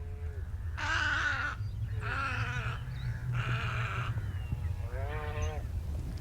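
Four harsh bleating calls from an animal, each well under a second and evenly spaced, over a steady low rumble.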